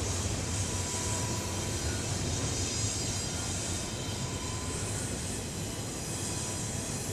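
Double-stack intermodal well cars of a freight train rolling past, a steady rumble of steel wheels on the rail with a high hiss over it.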